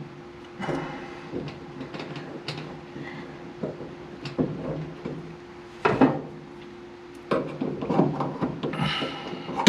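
Plastic retainer clip being forced by hand onto a dryer drum roller's metal shaft: irregular clicks, scrapes and rubbing as it resists going on, with a sharper knock about six seconds in and a quicker run of clicks near the end.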